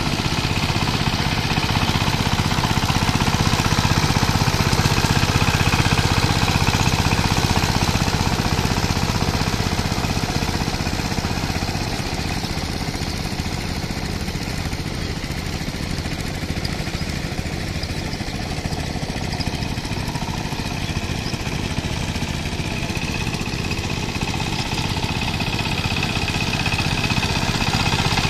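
Two-wheel power tiller's single-cylinder diesel engine chugging steadily as the tiller works through a flooded rice paddy. It gets somewhat quieter in the middle and louder again near the end as the tiller draws closer.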